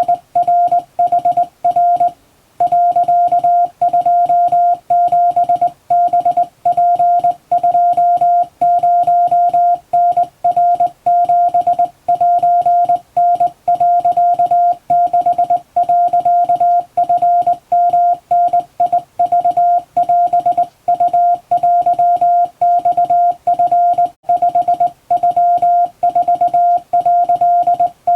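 Morse code sent by hand on a straight key: a single steady tone keyed on and off in dots and dashes, spelling out Japanese Wabun code. There is one longer pause about two seconds in.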